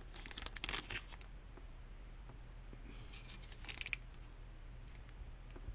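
Clear plastic zip bag crinkling as it is handled, with a few crackles in the first second and another short cluster around three to four seconds in, and quiet handling noise between.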